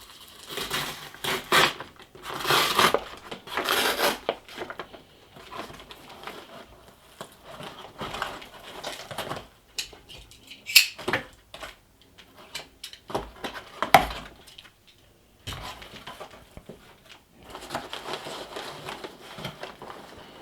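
A package being opened by hand: tape tearing and packaging rustling and crinkling in irregular bursts, with a couple of sharp clicks about halfway through.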